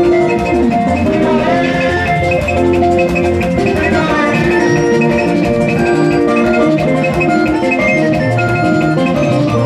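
Loud, steady dance music: drums keeping a regular beat under a bright line of quick, ringing melodic notes.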